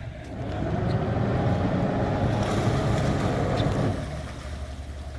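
Large motor yacht under power as it backs away from the dock: a deep churning rumble that swells about half a second in and eases off near the end.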